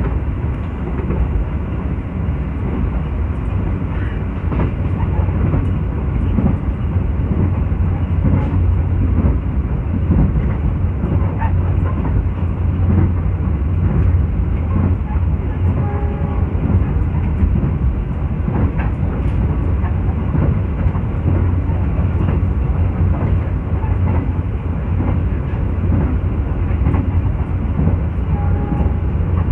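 Anjasmoro passenger train heard from inside a coach while it runs at speed: a steady low rumble of wheels on the rails, with faint clicks scattered through it.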